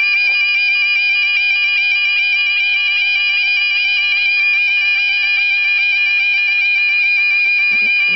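Level crossing warning alarm sounding continuously: an electronic warbling tone stepping rapidly and repeatedly between pitches.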